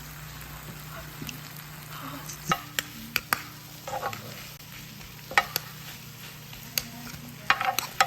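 Steady sizzling hiss of food cooking, with a low hum under it, broken by sharp clinks of utensils against dishes, several close together about two and a half seconds in and again near the end.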